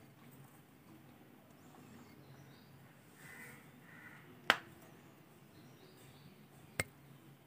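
Faint room noise with two sharp clicks about two seconds apart, the first louder.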